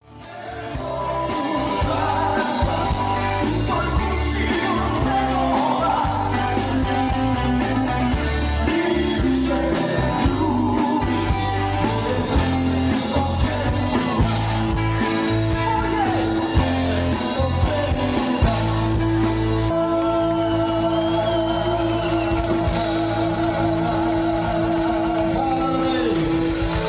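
Live rock band playing: electric guitars with a singer over a steady beat. About two-thirds of the way through, a long held note comes in and carries on under the rest.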